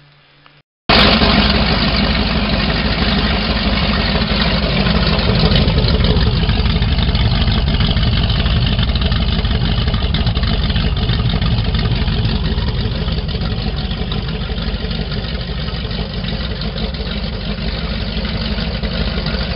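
Twin Mercury Racing 8.2 H.O. big-block V8 marine engines with CMI exhausts running loudly at a steady idle. The sound cuts in abruptly about a second in after a brief quiet moment.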